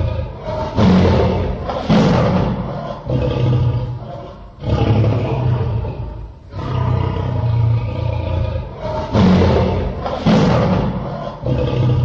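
Tiger roaring and growling in a series of deep, loud phrases with short pauses between them. The same stretch of roaring repeats after about eight seconds.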